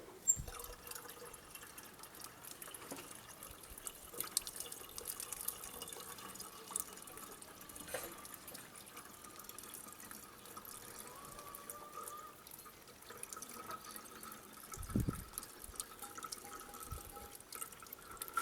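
Water being poured slowly through the small filler plug into a surface water pump's housing to prime it after repair, trickling and dripping, with scattered small clicks. A brief low thump about fifteen seconds in.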